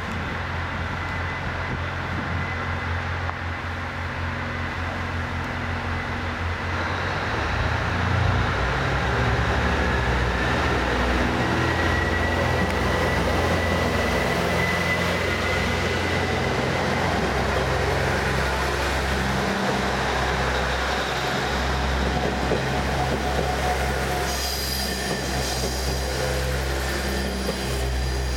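Five-car KiHa E120 and KiHa 110 diesel multiple unit pulling away and accelerating past, its underfloor diesel engines working hard and growing louder about 8 seconds in as the cars roll by. Near the end, as the train draws away, a thin high squeal of wheels joins the engine sound.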